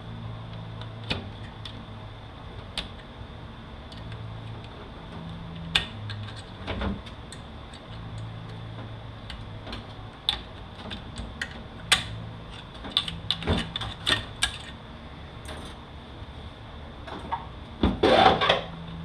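Scattered metal clicks and clinks of automatic-transmission parts being handled, a snap ring and clutch-pack plates being worked loose and lifted out, with a denser clatter near the end. A low hum comes and goes underneath.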